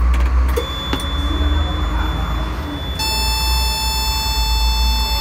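Add-on safety alarm in a forklift cab sounding a steady, high-pitched buzzer tone that comes on about three seconds in, after the ignition key is switched on, over a low steady hum: the warning that the seat belt is not fastened.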